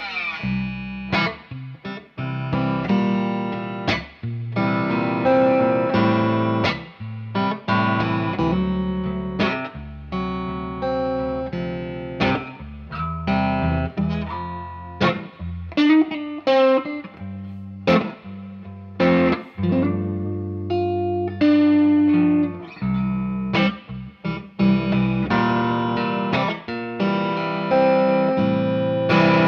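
Solo electric guitar, a Stratocaster-style instrument played through an amplifier: a line of single notes and chords with sharp pick attacks, many left to ring on.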